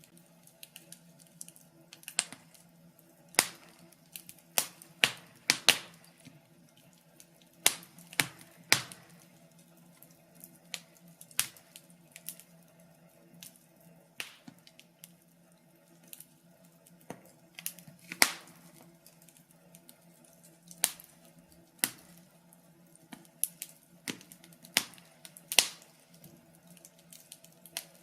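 Wood fire crackling in a fireplace: irregular sharp pops and snaps, some close together and some seconds apart, over a faint steady hum.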